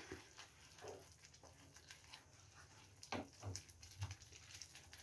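Faint stirring of thick chutney paste with a wooden spatula in a frying pan, with a few soft knocks three to four seconds in as the spatula is set down in the pan.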